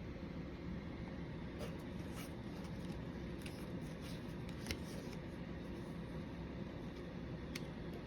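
Steady low room noise with a few faint, scattered clicks and rustles, the sharpest about halfway through.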